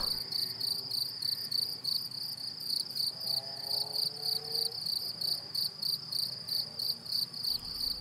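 Cricket chirping: a steady, high, rapidly pulsed trill, several pulses a second.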